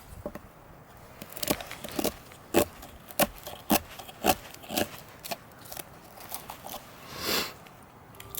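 Bushcraft knife cutting into wood in short, sharp strokes, about two a second, with a longer scraping stroke near the end.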